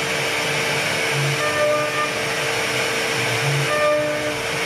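CNC router's high-speed spindle running steadily with a constant whine while its bit cuts a relief pattern into a wooden door panel. A brief extra tone comes up about every two seconds.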